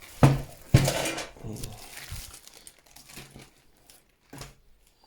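Packaging being handled: two sharp knocks in the first second, then crinkling and rustling that tails off, with a few lighter knocks.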